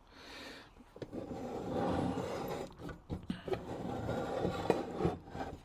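Rubbing and scraping with a few light knocks as the small model steam engine is tipped and handled on a work surface.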